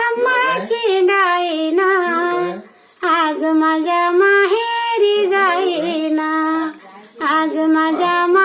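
A woman singing a Marathi Bhim Jayanti song solo in a high voice, holding long wavering notes. Her phrases are broken by two short breaths, about three and seven seconds in.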